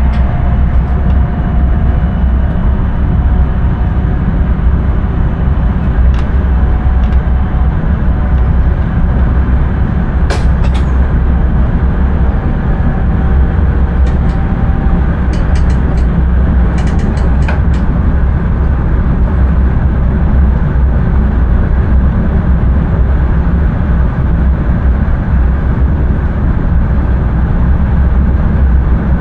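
Intercity train running at speed, heard from inside the driver's cab: a steady, loud running noise with a strong low rumble. A few sharp clicks come through about a third of the way in and again in a cluster a little past the middle.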